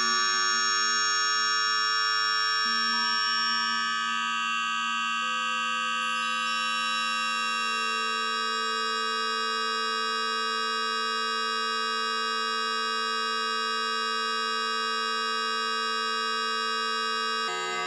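Electronic drone synthesized in Kyma: a frozen spectrum held as a dense chord of many steady, pure-sounding tones. Single tones enter or drop out one at a time, and near the end the whole chord switches abruptly to a new cluster.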